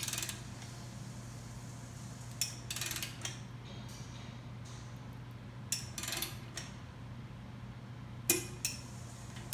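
Torque wrench ratcheting on the barrel vise's clamp bolt: short bursts of rapid metallic ratchet ticks about two and a half and six seconds in, then a sharp, louder click near the end.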